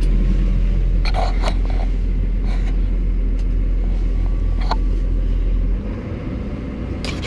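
Tractor engine running, heard from inside the cab, with a heavy deep rumble that eases off about six seconds in. A few brief knocks and rattles come through along the way.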